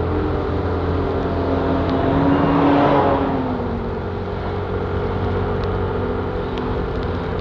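Steady car engine and road noise, with a low hum, swelling briefly about two to three seconds in before settling back.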